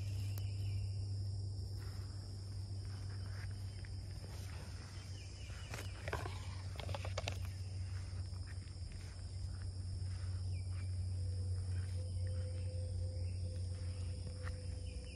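Natural outdoor ambience: insects trill steadily in two high-pitched tones, with a few short bird calls about six to seven seconds in, over a steady low hum.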